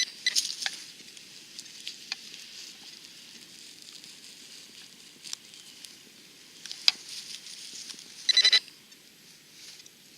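Digging at a metal detector target: faint scraping with a few sharp clicks of a digging tool. About eight seconds in comes a short, loud, warbling electronic beep from the detector.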